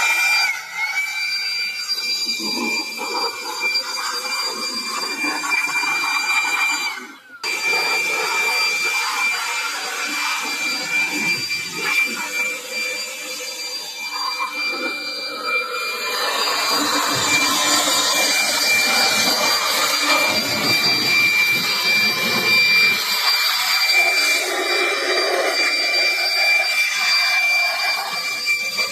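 A small electric motor running with a steady high whine over a rushing, air-like noise. It breaks off for a moment about seven seconds in and is louder from about halfway through.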